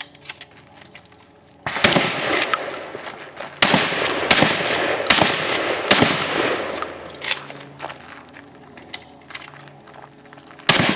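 Several gunshots fired at irregular intervals, each a sharp bang trailing off in a long echo.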